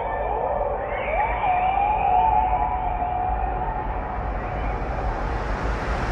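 Background music: a wavering melody gliding up and down over a low rumble, muffled at first and growing gradually brighter toward the end.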